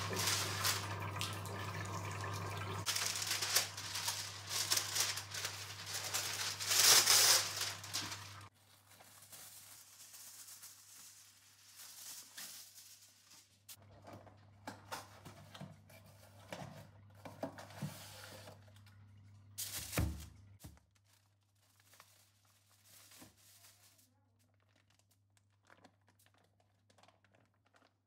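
Kitchen handling sounds: a loud rushing noise for about the first eight seconds, then quieter crinkling, rustling and light clicks, with one sharper knock about twenty seconds in. A low steady hum runs underneath.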